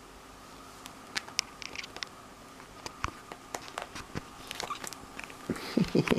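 Irregular soft clicks, scratches and fabric rustles as a kitten plays and scrambles over bedding and clothes, ending in a flurry of louder bumps.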